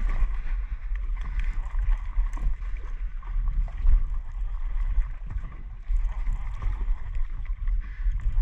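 Wind rumbling on the microphone over water sloshing against a small boat's hull.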